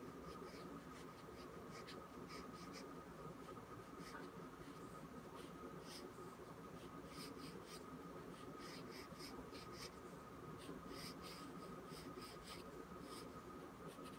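Pencil scratching on paper in quick, short, irregular strokes as shapes are sketched, faint, over a steady thin background hum.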